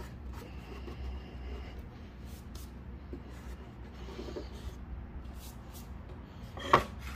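Fingers rubbing and scraping inside the empty plastic air filter housing of a Kawasaki mower engine, wiping out dirt and debris, with one short sharp knock near the end.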